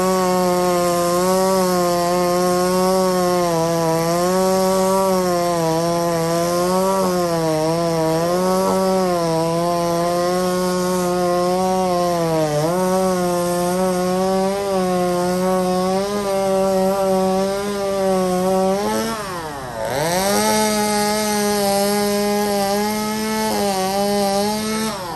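Gas chainsaw running at high speed as it cuts into an old wooden utility pole, its pitch sagging each time the chain bites. The pitch drops sharply about nineteen seconds in and then climbs back, and the saw stops near the end.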